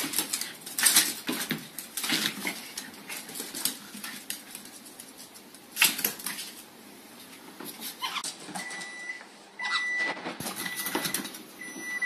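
A dog and a small parrot scuffling over a hardwood floor: irregular sharp clicks, taps and scrapes of claws and feet, with short animal calls. From about two-thirds of the way in, a few short, steady high tones.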